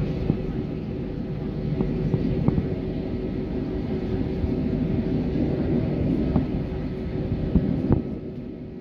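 Jet airliner heard from inside the cabin while it taxis onto the runway: the engines running at low power as a steady rumble with a held hum, with a few light knocks from the undercarriage as it rolls. The sound eases a little near the end.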